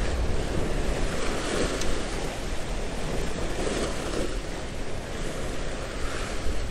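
Surf washing and breaking against the stone blocks of a rock jetty, with wind buffeting the microphone.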